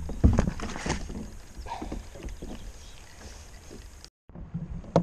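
Irregular knocks and taps of fishing gear being handled in a kayak, loudest in the first moment, then settling to a faint hiss of wind and water. The sound cuts out completely for an instant near the end.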